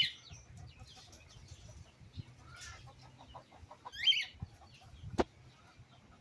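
Pet birds calling: a few short, high squawks with a quick run of clucking in between, and a sharp click about five seconds in.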